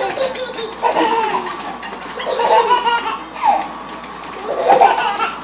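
Babies belly-laughing in about four separate bursts.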